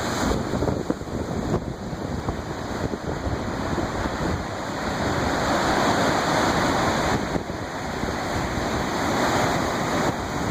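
Lake waves washing and breaking on the shore in strong wind, with wind rumbling on the microphone. The surf swells louder around the middle and again later.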